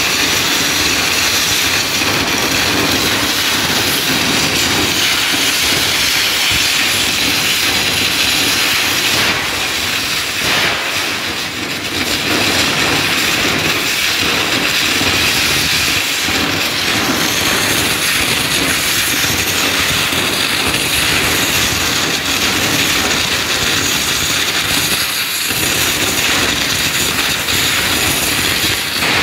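Falch ultra-high-pressure water jet at 3000 bar blasting the surface of a concrete wall: a loud, steady hiss of the jet on the concrete, dipping briefly a little before halfway.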